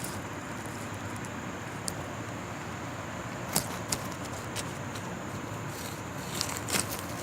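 Grass rustling and crackling as small toy figures are pushed through it: a few scattered crisp crackles over a steady hiss, growing denser near the end.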